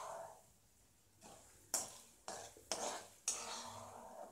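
Metal slotted ladle stirring and scraping chana dal frying in oil in an aluminium kadai, with several sharp clinks of the ladle against the pan in the second half. The dal is being roasted in sesame oil for a tamarind-paste tempering.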